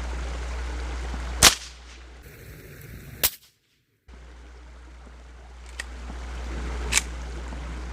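Remington Fieldmaster 121 pump-action .22 rifle firing three sharp cracks spread over several seconds, the first the loudest, with a fainter crack between the last two.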